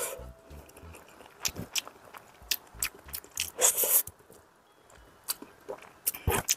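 Close-up eating sounds: a person chewing and slurping black-bean-sauce instant noodles, with many short sharp clicks and two louder slurps, one about three and a half seconds in and one near the end.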